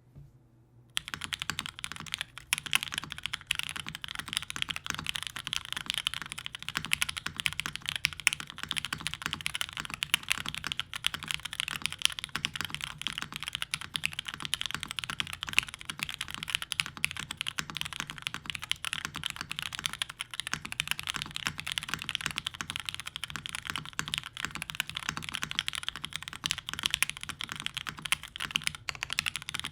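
Continuous typing on an OTD 360c mechanical keyboard with vintage Cherry MX Black linear switches, a full aluminium plate and GMK Plum keycaps: a dense stream of keystroke clacks that starts about a second in.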